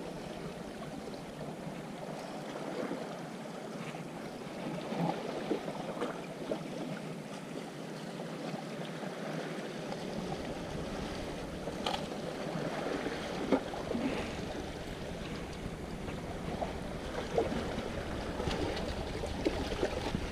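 Sea water washing against shoreline rocks, a steady hiss, with wind buffeting the microphone from about ten seconds in and a few faint clicks and taps.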